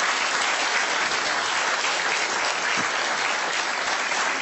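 Studio audience applauding: many people clapping in a dense, steady patter.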